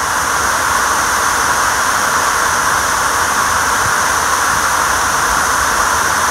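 A loud, steady rushing noise.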